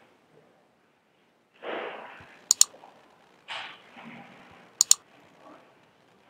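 Computer mouse clicks: two sharp press-and-release pairs about two seconds apart. Between them come short rushes of noise.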